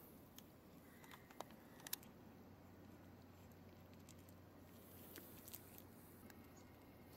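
A cat crunching dry kibble from a plastic tray: faint scattered crunches and clicks, the loudest pair about two seconds in and a few more after five seconds, over quiet background.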